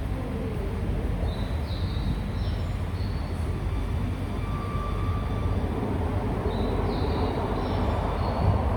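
Toei 5300-series electric train moving past a station platform: a steady low rumble that grows louder toward the end, with faint high tones that rise in pitch twice.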